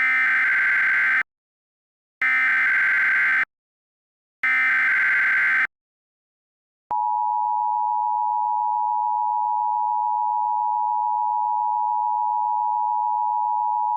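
Emergency Alert System signal: three loud bursts of the SAME digital header data, each about a second long and a second apart, then the steady two-tone attention signal starting about seven seconds in.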